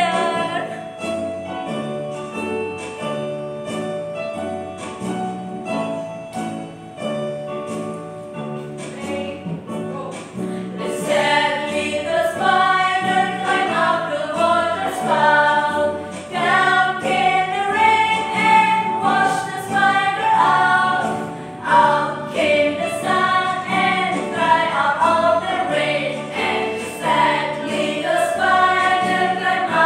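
Children's song played on an electronic keyboard with a steady bass beat. From about eleven seconds in, a group of women sing along in unison.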